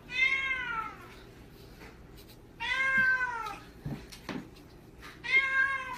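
A cat meowing three times, about two and a half seconds apart. Each meow is about a second long and rises then falls in pitch.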